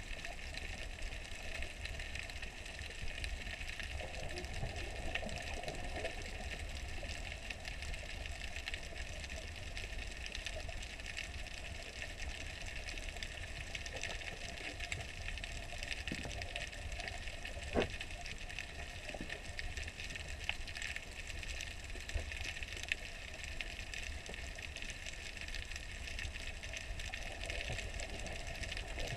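Steady, muffled underwater water noise picked up by a submerged camera, with a low rumble and a few sharp clicks, the loudest a little past the middle.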